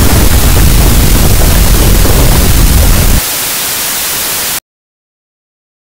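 Loud, distorted rumble with hiss, as of a microphone overwhelmed by earthquake shaking. About three seconds in the deep rumble drops out, leaving only static hiss, which cuts off abruptly to dead silence about a second and a half later as the camera feed loses signal.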